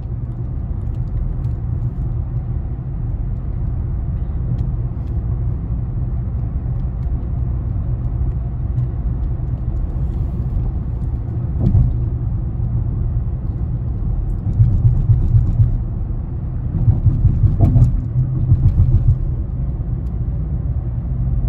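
Car cabin noise while driving at highway speed: a steady low rumble of tyres and engine, growing louder and pulsing for a few seconds at a time in the second half.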